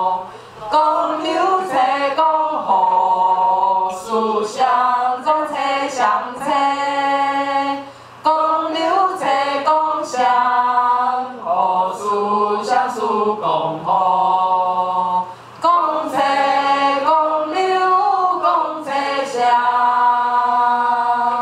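A room of men and women singing a slow, unaccompanied melody together, the syllables of traditional Chinese gongche notation (gong, che, liu, shang…), in held phrases a few seconds long with brief breaths between them.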